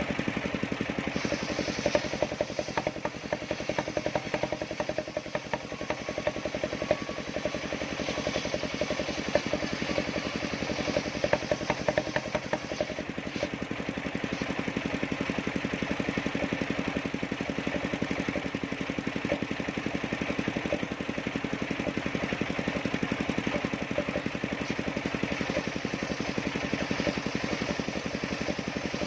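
Large circular sawmill saw running steadily, with a stretch of rattling clatter in the first half.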